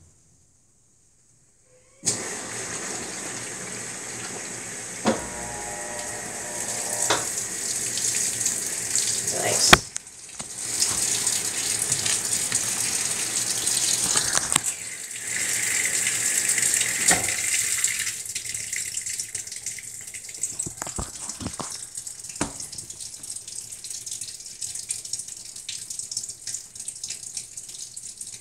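Water running and sloshing in the tub of a Maytag MVWX655DW top-load washer during the wash stage of a deep water wash, after a brief silence at the start, with a few sharp knocks along the way. The sound grows quieter about two-thirds of the way through.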